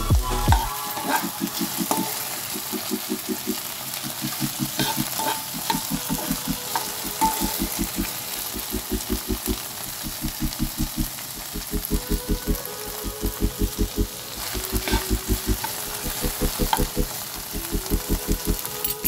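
Chopped okra sizzling in hot oil in a pan while a steel spoon stirs it, scraping the pan in quick repeated strokes that come in runs over a steady hiss.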